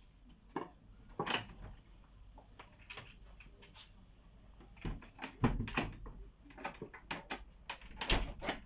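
A string of sharp knocks and clicks at irregular intervals, sparse at first, then coming in quick clusters over the second half.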